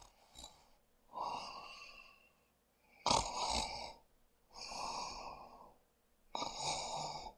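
A person breathing close to the microphone: four long, noisy breaths, each about a second long, with short pauses between them.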